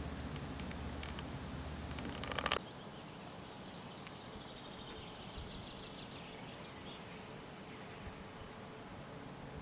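Outdoor ambience: a low rumble that ends suddenly after a short burst of crackling about two and a half seconds in, then a quieter background with faint high chirps.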